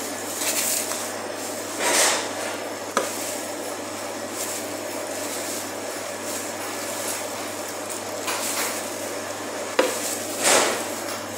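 Butcher's knife work on a cutting board while trimming beef: two sharp knocks of the knife and two brief swishes, over a steady low hum.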